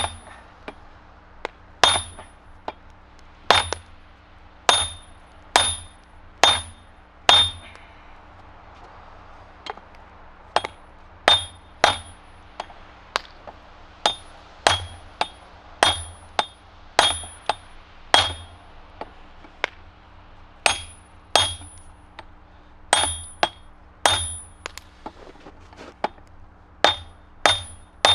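Hand-hammer blows on a red-hot steel hammerhead on a 35 kg Kanca anvil, about one strike a second, each with a short high ring. The blows pause for about two seconds some eight seconds in. The smith is drawing out a straight peen on the head.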